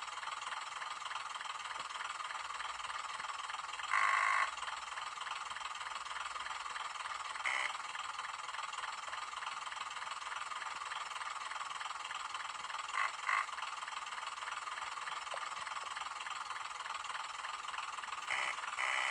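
Sound decoder of a Graham Farish N gauge Class 101 DMU model playing its idling diesel engines through the model's small speaker. Short buzzer tones sound over it: one about half a second long about four seconds in, a brief one a few seconds later, then two quick buzzes about two-thirds through and two more near the end. These are the guard's and driver's buzzer sound effects.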